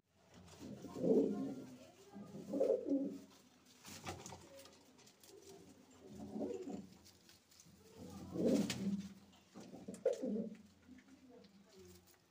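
Domestic pigeons cooing, a run of low repeated coos about one every second or two.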